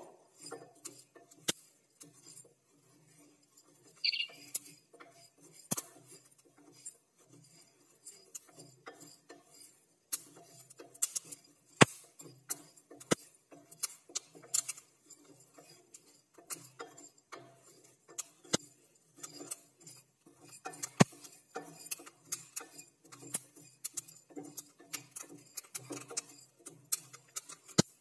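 Wooden spatula stirring dry-roasting whole spice seeds and dal in a metal saucepan: irregular clicks and scrapes of the spatula on the pan, with the dry seeds rattling. The clicks are sparser at first and busier in the second half.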